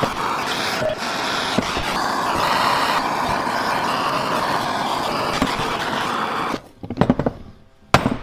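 Handheld gas torch burning with a steady hiss, heating an aluminium engine case half so a stuck bearing will come out. The torch shuts off about six and a half seconds in, followed by a few sharp knocks.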